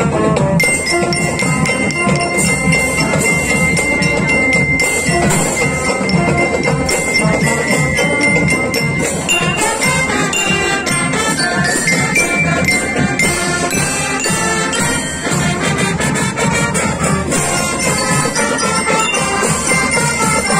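Marching band playing: bell lyres, metal glockenspiels struck with mallets, ring out the melody over trumpets, saxophones and sousaphone, with a steady marching beat.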